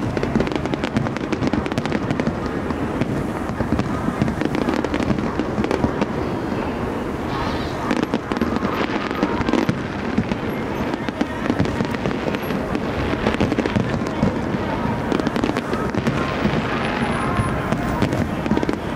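Aerial firework shells bursting one after another, a dense, unbroken run of bangs and crackles, with crowd voices underneath.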